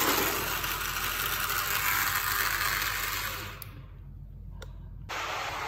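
Small electric motor of a cardboard model train whirring as the train runs along cardboard track. The whir drops away sharply about three and a half seconds in and comes back about a second and a half later.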